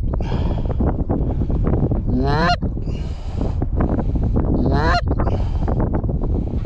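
A flock of Canada geese honking, a dense, continuous chorus of overlapping calls. A rising sweep recurs about every two and a half seconds.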